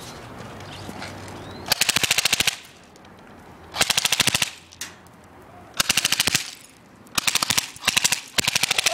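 Airsoft gun firing a series of short full-auto bursts, each under a second, about fifteen to twenty shots a second, the pellets striking a plastic CD case.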